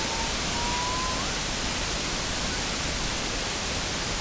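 Waterfall rushing: a steady, even noise of falling water, with a faint thin whistle-like note rising slightly in the first second.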